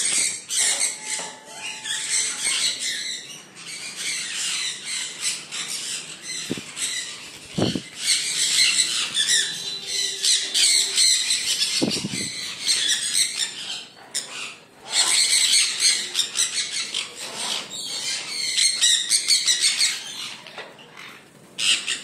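A flock of sun conures calling together: many overlapping shrill squawks and chatter that come in waves, with short lulls now and then.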